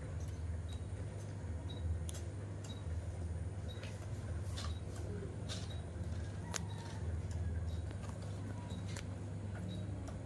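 Baby monkey suckling at a milk bottle: scattered faint sharp clicks over a steady low hum.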